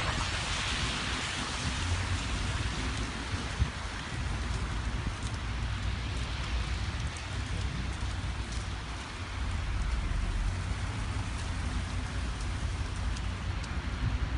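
Blizzard of wet April snow: a steady hiss of wind-driven snow with a low, uneven rumble of wind underneath. A single brief knock comes about three and a half seconds in.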